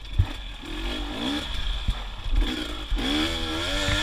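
Single-cylinder two-stroke engine of a KTM 250 XC TPI enduro bike revving up and down in short bursts while being ridden off-road, with a harder pull about three seconds in. There is a thump near the start.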